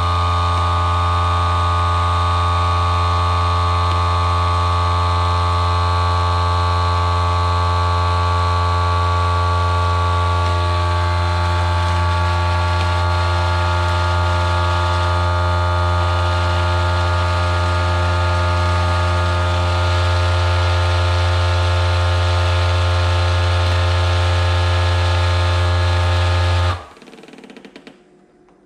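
FoodSaver vacuum sealer's pump running with a steady, a little noisy hum as it draws the air out of a bag of raw chicken. It cuts off suddenly near the end.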